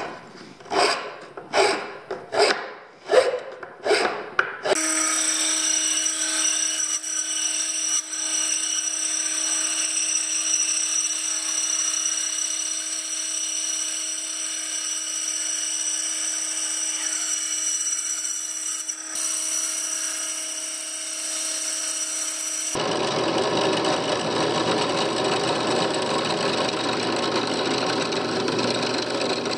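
A hand file rasping across a Baltic birch plywood slingshot blank in about six strokes; then a scroll saw running steadily as it cuts the plywood; then, from about 23 seconds in, a drill boring a hole through the plywood for the scroll saw blade.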